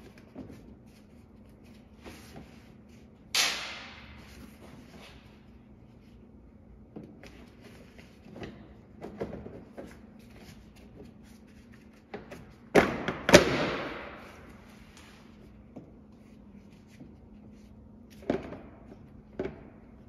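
Skid plates on a Yamaha YXZ-1000R underbody knocking and clattering as they are pushed and overlapped into place by hand: a few sharp knocks, the loudest a pair about two-thirds of the way through, over a steady low hum.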